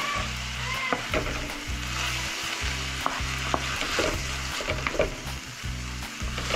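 Grated carrot frying in ghee in a kadai, sizzling steadily while a wooden spatula stirs and scrapes it, with scattered sharp knocks of the spatula against the pan.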